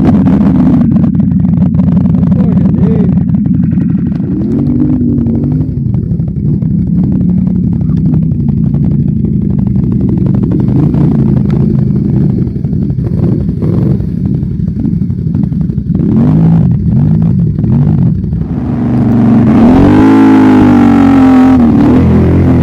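ATV engine running and revving repeatedly, with a hard rev and fall-off in the last few seconds.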